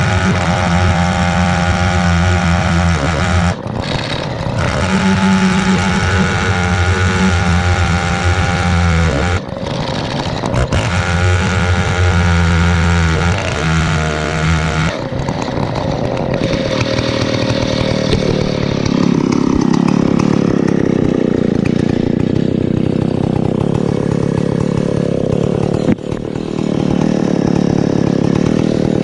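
Large two-stroke chainsaw, a 105cc Stihl 070 clone, running flat out on an Alaskan mill ripping a pine log. It holds a steady engine note with a few brief dips early on, then turns rougher and noisier from about halfway through.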